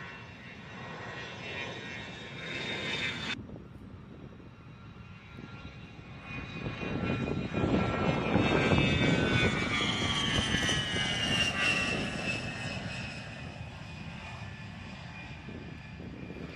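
Twin TF34 turbofan engines of an A-10C Thunderbolt II flying past. A high whine falls in pitch as the jet goes by, over a deep rumble, loudest about halfway through and then fading. The sound cuts off sharply and changes about three seconds in.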